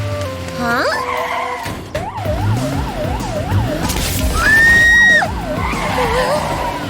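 Cartoon siren warbling fast up and down, about two and a half sweeps a second, over background music. About halfway through, a brief, loud, steady high tone cuts in, then the warble resumes.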